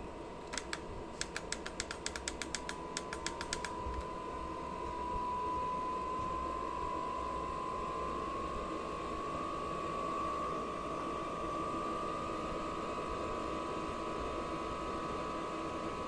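Diesel air heater running: a quick, irregular run of about twenty light clicks in the first few seconds, then the blower motor's whine rises steadily in pitch as the fan speeds up and holds steady.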